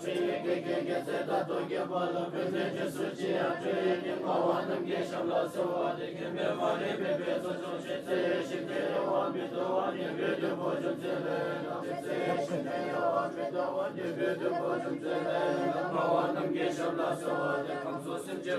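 Buddhist monks chanting together in a temple hall, many voices holding a steady, unbroken drone.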